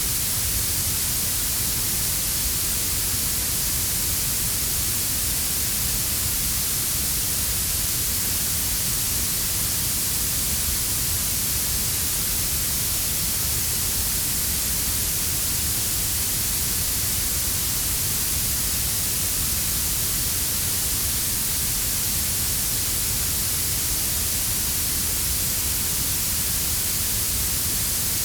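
Steady synthetic blue noise, a bright hiss strongest in the high frequencies, laid over a lower brown-noise rumble. It runs evenly with no change.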